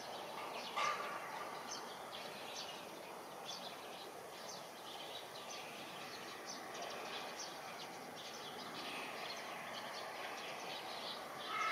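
Steady outdoor background noise with a bird chirping short high notes over and over, about once a second.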